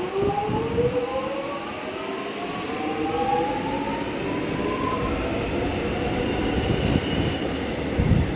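X'Trapolis 100 electric train pulling away, its traction motors whining in several tones that rise steadily in pitch as it gathers speed, over the rumble of wheels on rail. A low thud comes near the end.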